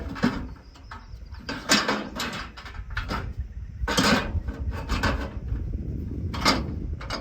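Irregular knocks and clunks of hands and tools working on a Timberjack skidder, a handful of separate strikes over a few seconds with a steady low rumble underneath.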